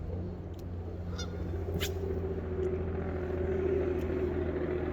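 A motor engine running with a steady low hum, joined by a held droning tone that grows gradually louder, with a few small clicks.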